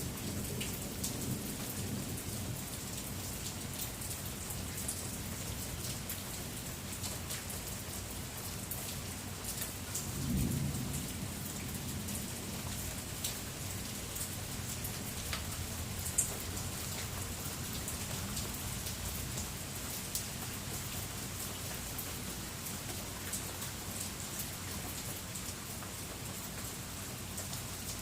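Steady heavy rain falling and pattering on surfaces, with scattered drips. Thunder rumbles low at the start and swells again about ten seconds in.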